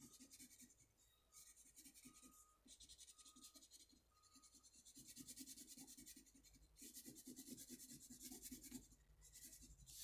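Faint scratching of a construction paper crayon on construction paper, in quick back-and-forth shading strokes. It comes in several runs, with the longest in the second half.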